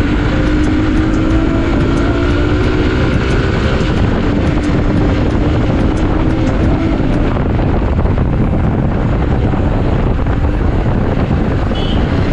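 Hero XPulse motorcycle engine running, a dense steady rumble with a faint engine tone drifting slowly in pitch through the first half.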